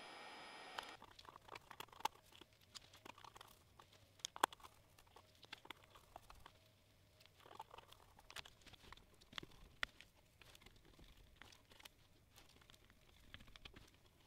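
Faint scattered clicks and rustling from hands handling wires and test-probe leads while connecting them to a small circuit board.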